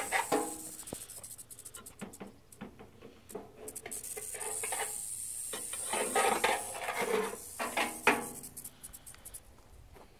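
A metal snake hook scraping and knocking against a metal trash can and the rocks inside it, in scattered scrapes and clicks that bunch up near the start and again a little past the middle. A steady high hiss runs under it and fades out about two-thirds of the way in.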